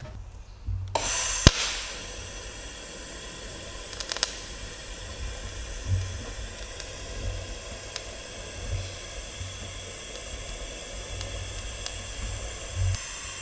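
TIG welding arc burning on thin stainless steel plate, fed by a Unimig Razor 200 AC/DC TIG welder. The arc starts about a second in with a sharp click, then runs as a steady hiss with a faint buzzing tone.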